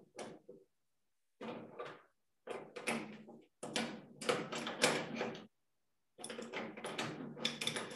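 Metal clattering and knocking in four irregular bursts as the copper work coil of an induction heater is handled, the longest burst in the middle. Dead silence between the bursts.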